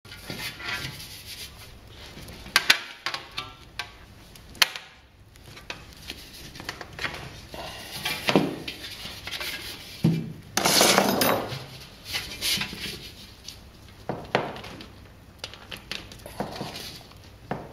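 Thin spun brass shells being handled and fitted together: irregular clinks and knocks of the metal, a few with a short ringing tone. About ten seconds in there is a second or so of scraping and rubbing of metal, the loudest part.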